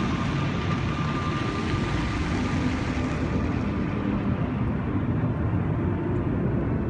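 Rushing hiss of fountain water jets and their spray falling back into the lake, over a steady low rumble. The hiss fades about halfway through as the jets drop.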